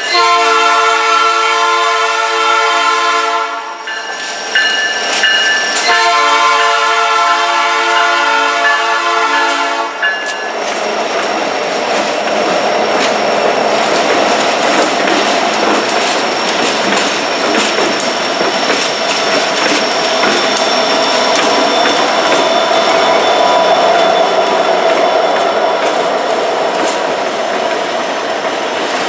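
Air horn of Providence & Worcester SD70M-2 #4302, a P3 horn, sounding two long blasts. The lashup of diesel locomotives then runs past close by, engines running and wheels clattering over the rails.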